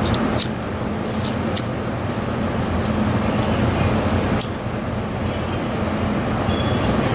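Wind buffeting the microphone, a steady rumbling rush of outdoor noise, with a few short sharp clicks in the first two seconds and another about four and a half seconds in.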